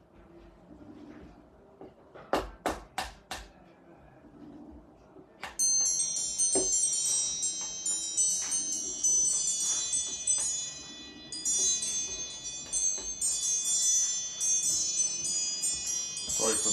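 Four quick slaps of a wooden paddle against a thrown clay pot. About five seconds in, chimes start ringing, many high tones overlapping, and they are the loudest sound from then on.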